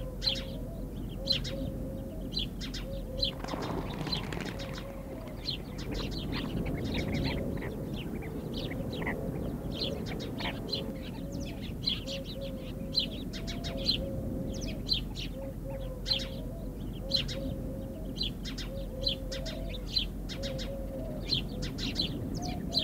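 Birds at a desert waterhole where chestnut-bellied sandgrouse are gathering to drink: a steady run of short, high chirps with a softer, lower call repeating beneath them. A rush of wingbeats comes about four seconds in.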